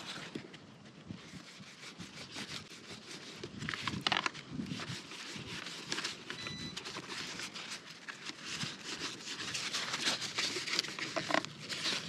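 Paper towel rustling and crinkling as it is folded and rubbed over a carbon-fibre helmet shell, wiping the shell clean with alcohol. The sound is an irregular crackle with a few louder rubs.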